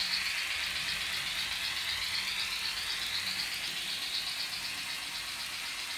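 N gauge model train running on the layout: a steady, rapidly pulsing rattle of small wheels on the track with a high motor whir that slides up in pitch.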